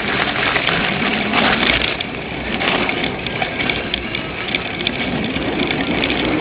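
Cyclocross bike being ridden over rough ground, picked up by a handlebar-mounted camera: a steady rush of noise with constant small rattles and clicks from the bike and tyres on dirt.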